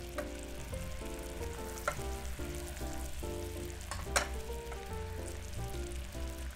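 A steady crackling, sizzling hiss with a few sharp clicks, the loudest about four seconds in, under background music with a simple stepping melody.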